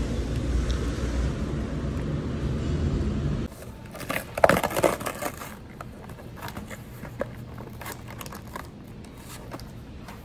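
Steady low rumble of street traffic, then, after a cut about three and a half seconds in, a snack's plastic wrapper being torn open by hand: a loud rip with crackling just after the cut, then scattered small crinkles and clicks of the packaging.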